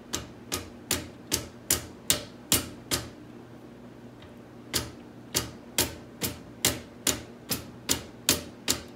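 Small rubber mallet tapping repeatedly on an ATV part: about twenty sharp taps at roughly two a second, in two runs with a short break near the middle.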